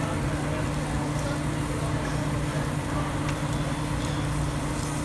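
Thin-sliced beef sizzling on a tabletop Korean BBQ grill plate as metal tongs spread it, with a few light clicks of the tongs on the plate. A steady low machine hum runs under it throughout.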